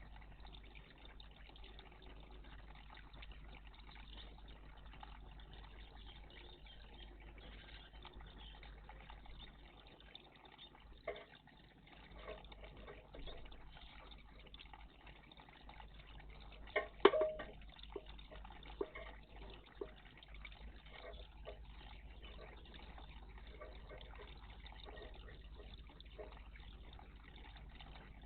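Small birds splashing in a garden bird bath: a few short, faint bursts of splashing, the loudest about seventeen seconds in, over a quiet steady water sound.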